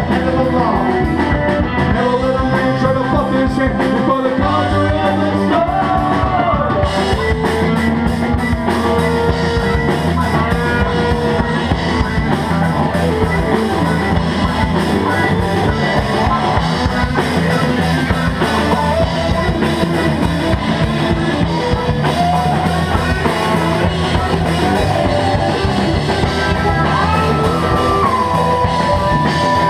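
Live rock band playing loud and continuous: electric guitars, bass guitar and drum kit, with a long held note that slides down and then holds near the end.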